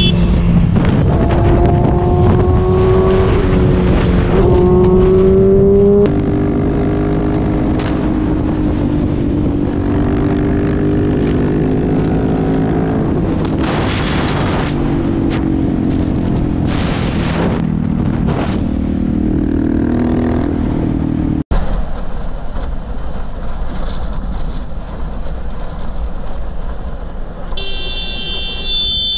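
Sport motorcycle engines accelerating, their pitch climbing and dropping back as they shift up through the gears, over wind rush. The engine sound changes abruptly twice, and in the last part it gives way mostly to wind noise. A horn sounds for about two seconds near the end.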